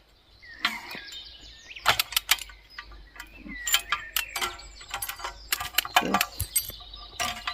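Metal clinks and rattles, a dozen or so sharp strokes, as the chain and hook of an old lever chain puller are handled and hooked on. Birds chirp in the background.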